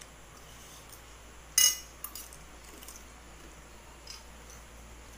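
A spoon clinks sharply against a plate about a second and a half in and rings briefly, followed by a few softer taps of cutlery on dishes.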